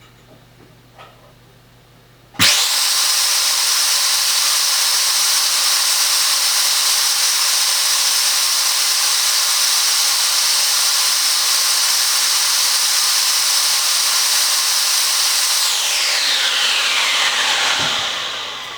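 Bare 1800 W vacuum cleaner motor switched on about two seconds in, starting abruptly and running at a loud, steady high whine. Near the end it is switched off and spins down, the whine falling in pitch as it fades.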